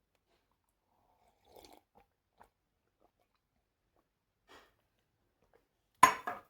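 Near silence with a few faint clicks and rustles, then a short, loud mouth noise close to the microphone near the end, like a sharp breath.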